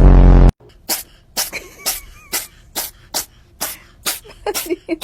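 A cat sneezing over and over in a rapid run, about two sneezes a second and around ten in a row. A loud, low buzzing tone lasting about half a second comes first.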